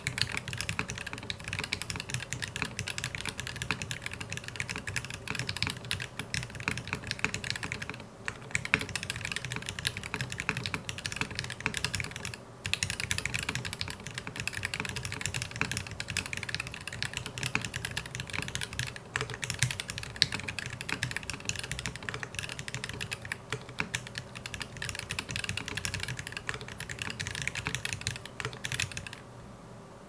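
Fast, continuous typing on a custom mechanical keyboard: lubed, filmed Gateron Ink Black linear switches in a full brass plate, struck through cherry-profile keycaps. A couple of brief pauses break the typing, and it stops about a second before the end.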